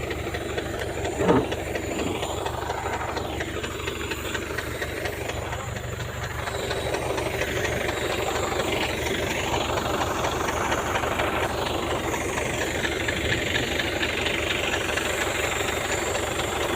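An engine running steadily with a rapid, even pulse, and one short knock about a second in.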